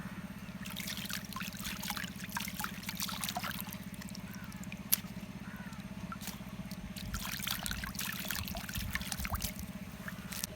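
Crisp crackling crunches, typical of chewing raw guava, in two bouts separated by a few scattered clicks, over a steady low hum.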